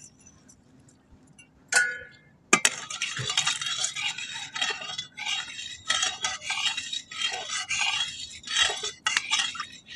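A long flat metal spatula scraping and stirring round a metal kadai, where sugar is browning in a little oil to colour a curry. A single metal clink comes about two seconds in; from about half a second later, rapid irregular scraping strokes follow one after another.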